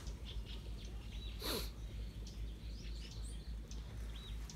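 Small birds chirping, short high chirps scattered through, with one louder sound with a falling tail about a second and a half in, over a steady low rumble.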